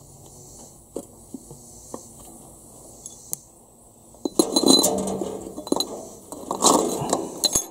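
Metal clinking and scraping as the oil filter cover of a 1966 International Harvester 404 tractor is set back on its housing and worked into place. A few light ticks come first, then two louder stretches of clinks with a faint metallic ring, about four and a half and about seven seconds in.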